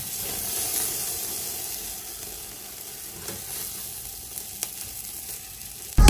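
Marinated chicken sizzling on a grill grate over an open flame: a steady hiss with a few faint pops, slowly fading. A bell-like music sting starts right at the very end.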